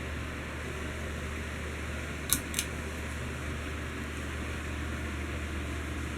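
Heritage Empire Deluxe ceiling fan running steadily with a low motor hum and an even rush of air. Two sharp clicks a quarter second apart, a little over two seconds in, are the loudest sounds.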